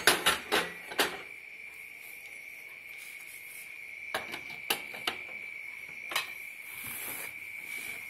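Metal burner caps of a Prestige four-burner gas stove clinking as they are set into place: a quick run of clicks in the first second, then a few scattered ones. A steady high-pitched whine runs underneath.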